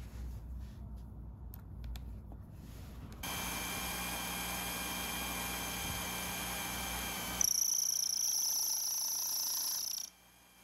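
A few light clicks of hands at the tool post, then the motor of a 1981 Craftsman (Sherline) micro lathe starts about three seconds in and runs with a steady whine while its cutting bit is not adjusted correctly. A few seconds later a louder, higher-pitched whine takes over and stops abruptly just after ten seconds.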